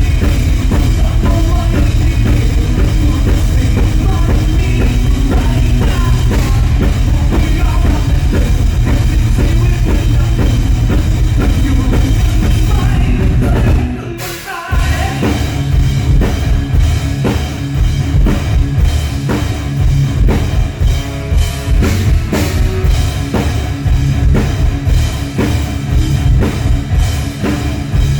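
Loud rock band playing, with a drum kit prominent. The music breaks off abruptly for about half a second about halfway through, then resumes with choppy, drum-heavy playing.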